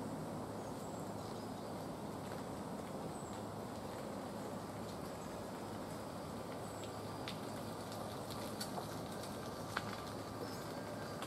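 Steady low outdoor background noise with a few faint high chirps and light ticks; the sharpest tick comes near the end.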